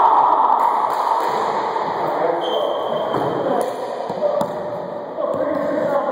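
Men's voices talking and calling out, echoing off the walls of an enclosed racquetball court, with a few sharp knocks partway through.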